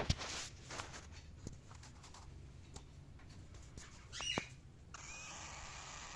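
Cockatiel giving a short, high chirp about four seconds in, then a raspy, hissing call lasting about a second that stops abruptly. Faint scattered clicks come in between.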